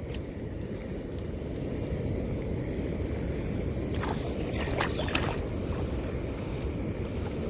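Steady low rush of water flowing through a spillway, with a few short clicks about four to five seconds in.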